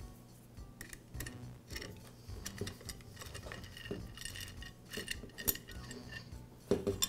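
A small hex wrench turning out the screw that holds a Makita jigsaw's metal base, with scattered light metal clicks and short clinks as the wrench and base knock together.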